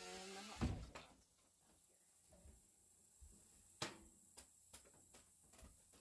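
Cast-iron oven door of a wood cook stove creaking briefly and shutting with a thump about half a second in, followed by scattered light knocks and clicks.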